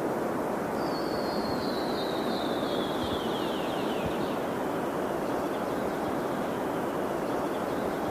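A songbird's trill over steady outdoor rushing noise. From about a second in, a quick run of high notes slides downward in pitch for about three seconds.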